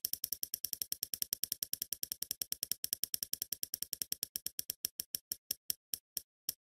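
Spinning prize-wheel ticking effect: rapid clicks, about ten a second, that slow steadily to about two a second as the wheel winds down.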